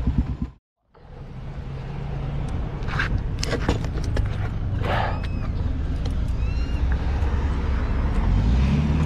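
Motorcycle engine running at a low, steady note, heard from the rider's seat, with a few sharp clicks about three and five seconds in and some short high chirps. The engine note rises near the end. The sound drops out for a moment just before the engine comes in.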